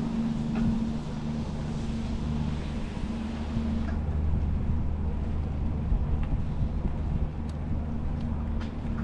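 Steady low drone of a running vehicle engine, holding a few low tones, mixed with wind rumble on the microphone.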